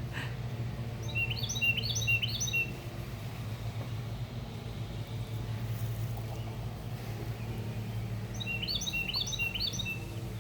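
A small songbird singing two short phrases of quick repeated high chirps, one near the start and one near the end, over a steady low hum.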